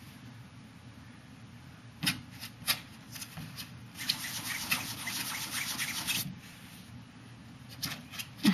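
Rustling and rubbing from something being handled, with two light taps about two seconds in and a longer stretch of rustling from about four to six seconds in.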